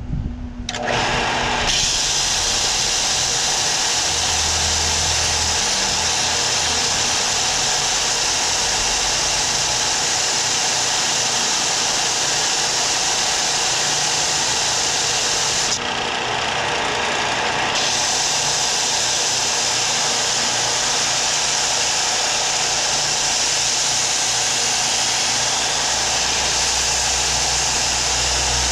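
Power tool running steadily on wood, a loud even hiss with no breaks, the high part of the sound dropping out for about two seconds midway.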